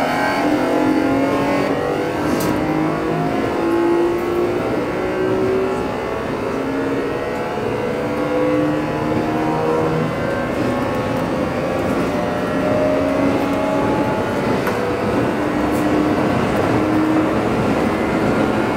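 Keio 8000 series electric train running under its Hitachi GTO-VVVF inverter, heard from inside the car directly above the control unit: the inverter's magnetic whine and the traction motor tones climb slowly in pitch as the train gathers speed.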